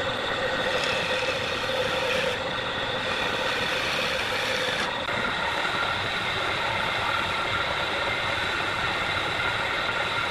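Wood lathe running steadily, first with a hand-held turning tool cutting the spinning wooden vase, then from about five seconds in with sandpaper rubbing against it as it spins.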